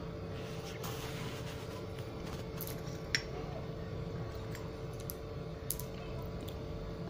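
Pieces of baked clay diya being chewed in the mouth, giving scattered sharp crunching clicks, the loudest about three seconds in, over a steady low hum.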